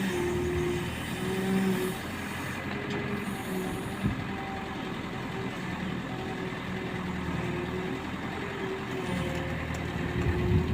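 Large excavator's diesel engine running steadily, with a pitched drone that wavers slightly as the machine works.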